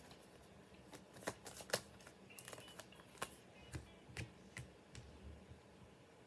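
Tarot cards being handled: a scatter of light, irregular card snaps and taps as the deck is worked and a card is drawn.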